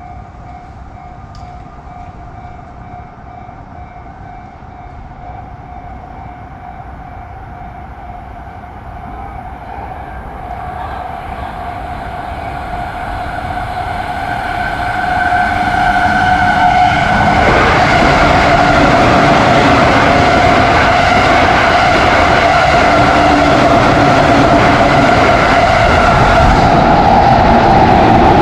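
Level-crossing warning alarm sounding a steady tone while an electric train approaches. The train's noise swells from about ten seconds in and is loud from about seventeen seconds in as it passes.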